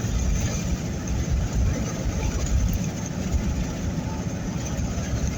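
Low rumble inside a moving car's cabin: road and engine noise mixed with gusts of strong wind buffeting the car.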